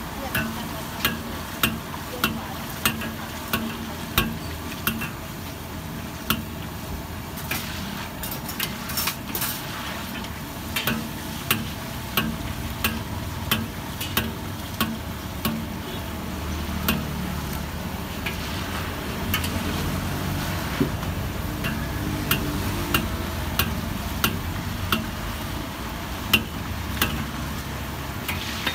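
Steel ladle stirring sweet potato balls in a wok of hot oil: the ladle clinks and scrapes against the steel wok about twice a second over a steady frying sizzle.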